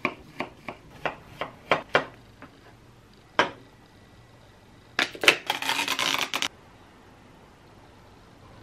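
A quick run of light clicks and knocks on a hard surface, one more a second later, then about a second and a half of rasping or rustling from small objects being handled.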